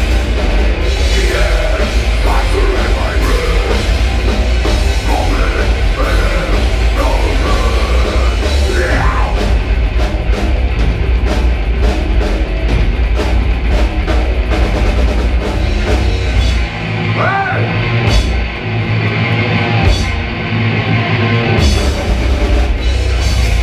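Heavy rock band playing live at full loudness, with drum kit and distorted guitars. A few seconds past the middle the low end drops away briefly, then the full band comes back in near the end.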